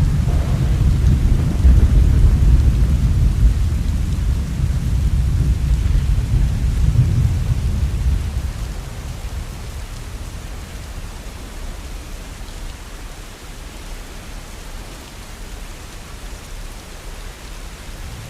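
Thunder rumbling over steady falling rain. The deep rumble fades away about halfway through, leaving the even hiss of the rain.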